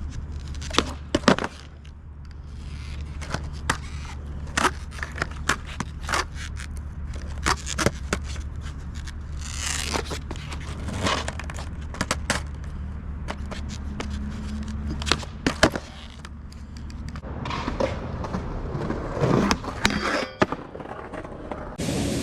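Skateboards rolling on concrete, with repeated sharp pops and clacks of boards striking and landing, over a steady low rumble.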